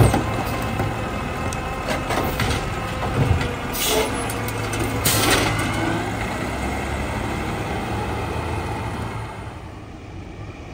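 Ginove Rotopac side-loader garbage truck's diesel engine running, with a sharp knock at the start as the automated arm sets the emptied cart down. Two short air hisses follow a few seconds in as the truck moves off, and the sound drops to a quieter, more distant level near the end.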